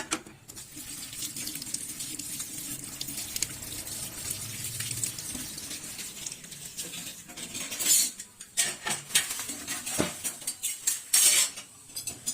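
Pots and dishes clinking and clattering while ingredients are rinsed. A steady hiss runs through the first several seconds, then a run of louder clanks and knocks follows in the second half.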